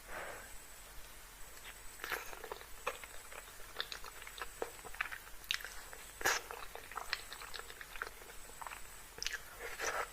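Close-miked chewing of creamy Alfredo pasta: an irregular run of short mouth smacks and clicks.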